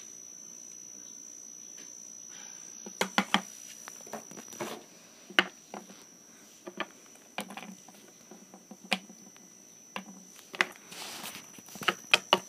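Scattered light clicks and taps of plastic toy figures being handled and set down on a wooden table, over a faint steady high-pitched whine.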